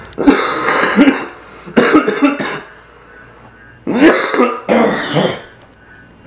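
A man coughing loudly in four bouts of about a second each. It is a lingering cough from an illness he is still fighting.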